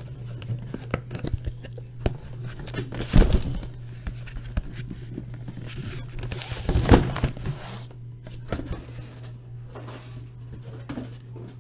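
Cardboard shipping case being opened and handled: scattered scrapes and knocks, with two louder rustling scrapes about three seconds in and past the middle, over a steady low hum.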